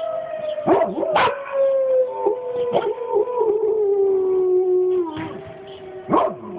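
A dog howling and yipping along with a tornado warning siren. The siren's long wail slowly falls in pitch and stops about five seconds in, while the dog's short yelps and howls break in several times over it.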